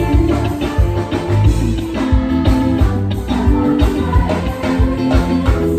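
A live band playing with a steady beat: electric guitar over bass and drums, amplified on stage.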